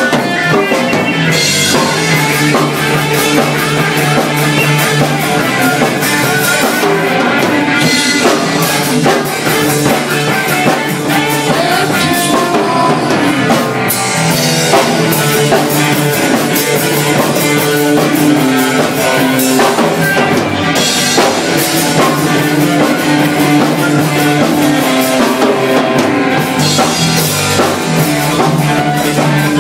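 Live rock band playing a loud, continuous instrumental passage: electric guitar and bass guitar over a drum kit.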